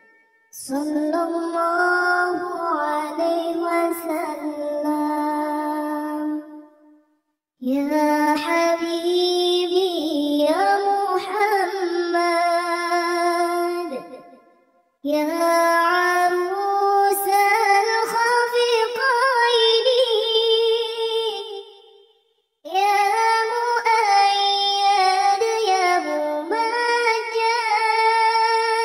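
A high, child-like voice singing an Arabic shalawat unaccompanied, in four long ornamented phrases with brief pauses between them, the notes held and sliding between pitches.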